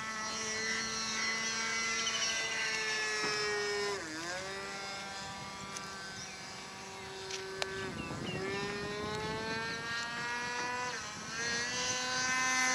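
Richmodel Spitfire 40 RC model plane's engine and propeller running steadily in flight overhead. Its pitch dips and climbs back a few times as the plane passes and turns.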